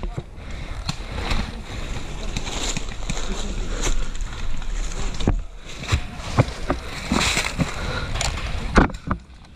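Rustling and crunching of a person moving on foot through brush, with scattered footsteps and knocks from gear. A sharp knock comes a little before the end.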